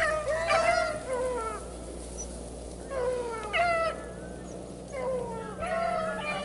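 Beagles baying on a rabbit's scent trail: drawn-out hound cries that fall in pitch, coming in three bouts, at the start, about three seconds in and near the end, with quieter gaps between.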